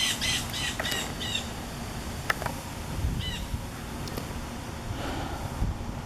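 Blue jay giving a quick run of about five harsh calls in the first second and a half, then one more call a couple of seconds later. The calls are typical of an alarm, which the observer takes for a warning to other birds as a storm comes in.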